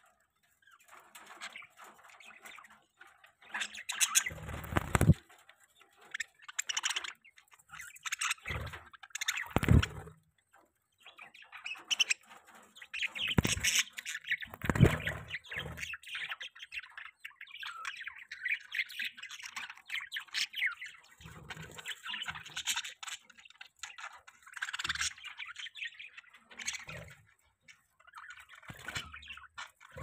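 A flock of budgerigars chirping and chattering almost without a break, with a few louder bursts of wing flapping about four, ten and fifteen seconds in.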